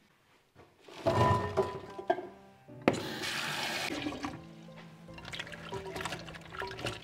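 Kitchen tap water running and splashing as cut shallots, garlic and spices are rinsed, heaviest from about one to four seconds in, with background music playing.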